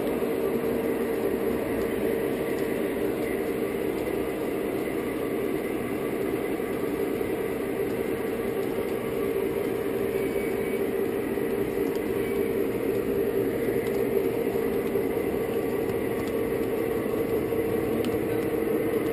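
O scale model train running steadily on three-rail track: a continuous rolling rumble and hum picked up from the flatcar as the locomotive pushes it along.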